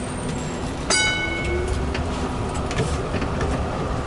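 1970s Z-class Melbourne tram running, with a steady rumble. About a second in comes a single bell-like ding that rings on briefly, then a short rising motor whine as the low rumble grows.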